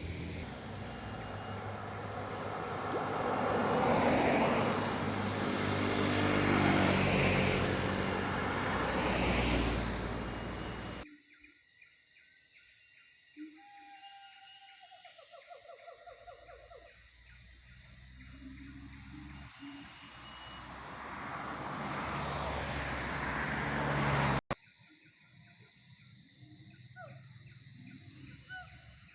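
Road vehicles passing twice, each one rising and falling in level. In the quieter stretch between them a bird gives a short falling series of calls, and a few short, higher calls come near the end.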